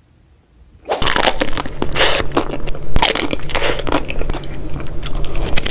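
Crunchy food being bitten and chewed close to the microphone: loud, dense crunching that starts suddenly about a second in.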